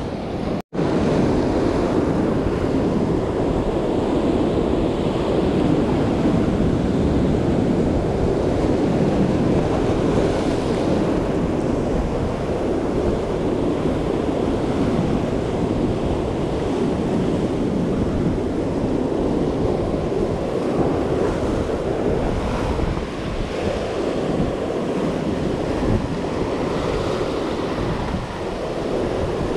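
Ocean surf breaking and washing over a rocky shore ledge, a steady churning rush with wind buffeting the microphone. The sound cuts out for an instant about a second in.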